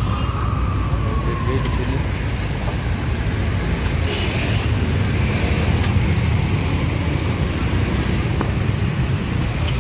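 Steady road traffic rumble from cars and motorbikes passing on a busy city street, with a faint falling whine in the first couple of seconds.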